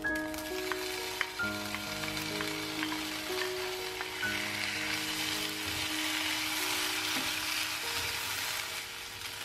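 Egg fried rice, beef and onion sizzling in a nonstick frying pan as they are stirred together with a spatula. The sizzle grows louder a few seconds in, after a few light clicks near the start.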